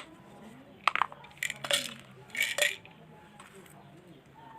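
A few sharp clicks and clinks of small hard objects knocking together: two about a second in, then two short clusters over the next second and a half.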